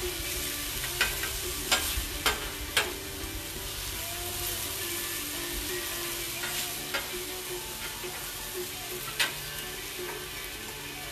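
Food sizzling steadily on a Blackstone flat-top griddle, with a metal spatula clicking and scraping on the steel cooking surface several times: a cluster of sharp clicks in the first three seconds and another about nine seconds in.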